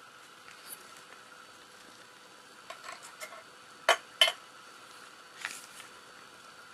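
Sharp metal clicks and clinks as an opened tinplate fish can and its lid are handled against a plate, the two loudest in quick succession about four seconds in.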